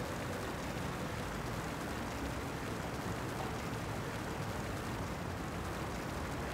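Steady background of distant traffic: an even low rumble with a soft hiss above it. No single event stands out.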